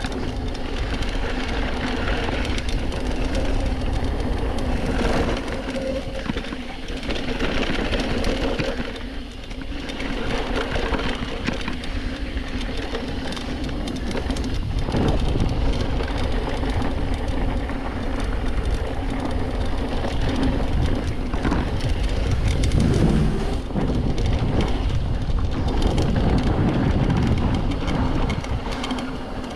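Mountain bike descending a dirt trail: tyres rolling and crunching over dirt and rock with a continuous low rumble, scattered knocks from the bike, and wind on the microphone.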